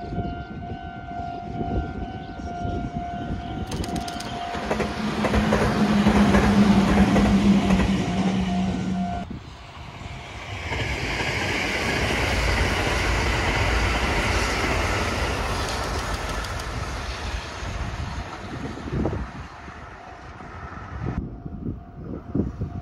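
Trains passing on the line. A steady high tone sounds from the start, then a train passes loudly with a steady low horn-like tone over the track noise. The sound cuts off abruptly about nine seconds in, and a second train then rises and fades away.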